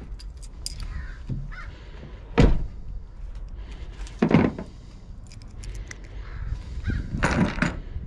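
A pickup truck door shutting with one heavy thunk about two and a half seconds in, then two louder harsh bursts about two and three seconds later, amid light clinking of small metal lock parts and keys being handled.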